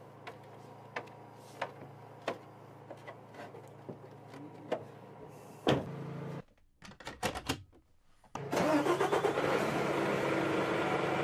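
Light clicks and knocks at a regular pace over a low hum, then a single heavy thump about six seconds in. After a few quick clicks, the Mercedes-Benz Future Truck 2025 starts up and runs with a steady, noisy rush for the last few seconds.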